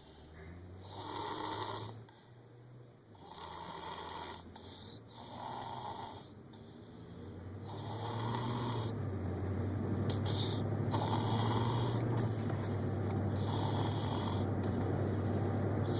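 Snoring in repeated short bursts every second or two. A steady low hum builds from about halfway and then holds, louder than the snores.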